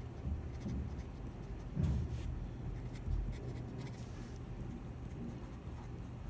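Writing strokes: short scratchy bursts of a pen-like tip moving across a writing surface, in several clusters with brief pauses, over a steady low hum.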